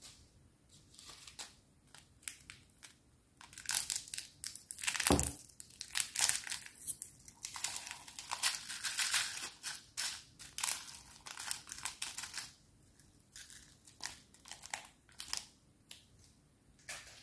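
A small clear plastic packet being crinkled and torn open by hand, in irregular crackly bursts, with a dull knock about five seconds in.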